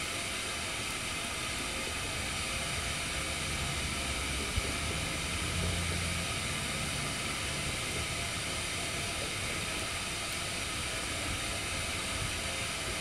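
Canister-gas pocket stove burning under a covered pot: a steady gas hiss from the burner.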